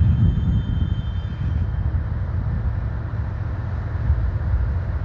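Freight train moving through the wye: a steady low rumble, with faint thin high squeals in the first second and a half.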